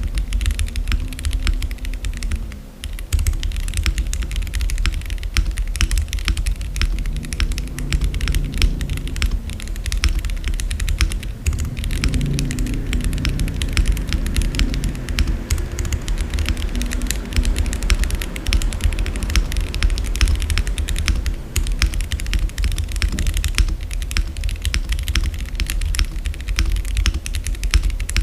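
Fast, continuous typing on an MW65 gasket-mount 65% mechanical keyboard with Gateron Milky Yellow linear switches and PBT keycaps, run with no case foam or tape: a dense stream of key clacks with a deep thump under each stroke. There is a short pause about two and a half seconds in.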